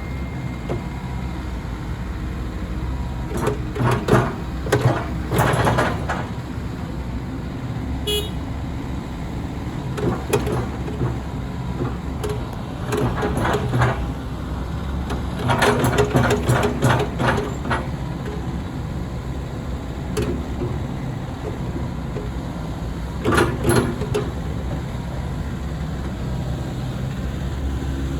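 Komatsu PC138US-11 hydraulic excavator's diesel engine running steadily, with repeated bursts of clattering and knocking as the machine is worked.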